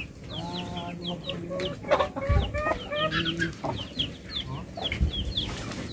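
Chickens clucking, with repeated short, high chirps throughout and a few dull thumps.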